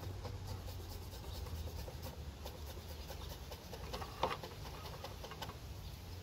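Chef's knife chopping fresh mint leaves on a wooden cutting board: a run of faint, quick taps of the blade on the wood.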